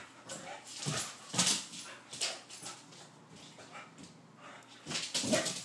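Boxer dog playing on a hardwood floor: a few short scuffling, huffing sounds, then a brief vocal grunt near the end.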